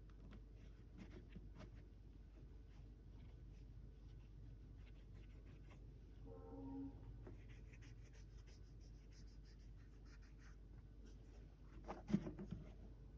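Faint scratchy rustling and light clicks of sneakers and their packaging being handled, with a short pitched squeak about halfway through and a single knock near the end.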